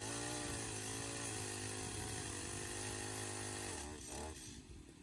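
Chainsaw running at high speed while cutting through a thick branch of a fallen tree, its pitch wavering slightly as the chain bites. It fades away near the end.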